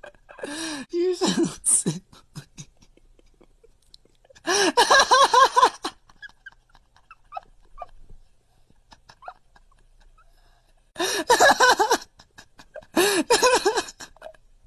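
Domestic cat making odd vocal calls: four bursts of quick, rising-and-falling cries, each lasting a second or so, with long pauses between them.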